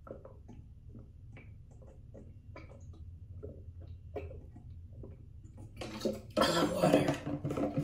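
Handling noise from small objects: faint scattered clicks and taps, then, about six seconds in, louder clattering and rummaging close to the microphone.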